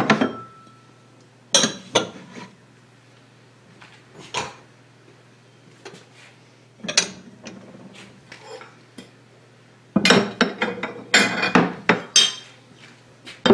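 Glazed ceramic Fiestaware plates and bowls clinking and knocking as they are set down into a wooden peg drawer. There are a few separate clinks at first, one leaving a brief ring, then a quick run of clattering over the last few seconds as more dishes are stacked.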